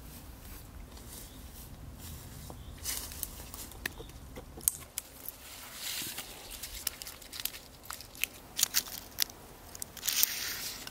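Scattered sharp crackles and snaps of dry twigs and bark, with brief rustles, starting about three seconds in and coming more often toward the end.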